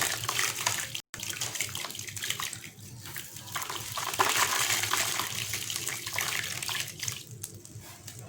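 Gritty sand-cement chunks crumbling into water: a dense patter of tiny crackles over a wash of water, loudest in the middle. It breaks off for an instant about a second in.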